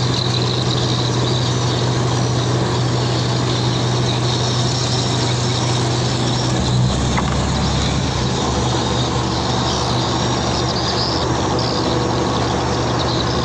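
Engine of a wooden pompong motorboat running steadily under way, its low hum dropping to a lower pitch about halfway through.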